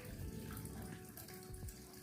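Water running and splashing steadily where a small bird is bathing, over a few faint held tones.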